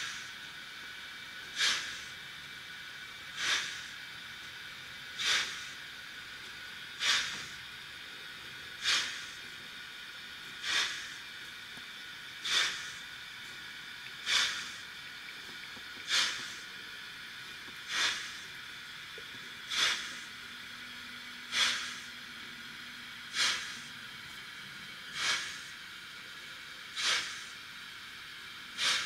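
Steam-locomotive sound from the Märklin Trix BR 96 Mallet model's built-in sound decoder, played through its small onboard speaker. It gives slow, evenly spaced exhaust chuffs, about one every two seconds, over a steady background hiss.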